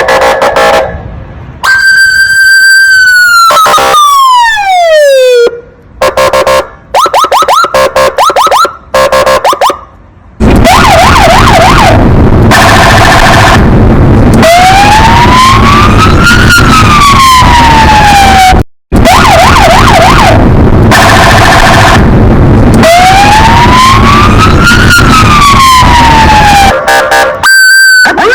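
Police car siren switching between patterns: a long falling wail, stretches of rapid yelping, and slow rising-and-falling wails, broken by short gaps between patterns. Loud, with a harsh noisy layer under the tones from about ten seconds in.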